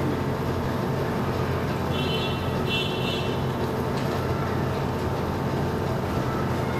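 Steady low rumble and hum of background noise, even throughout, with a faint high chirping sound about two and three seconds in.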